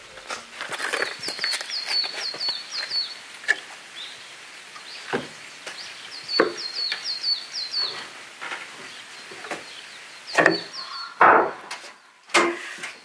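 Wooden knocks and thumps from a barrel sauna's door and slatted wooden floor as it is opened and stepped into, the loudest a little after ten seconds in. A songbird sings runs of quick high chirps three times.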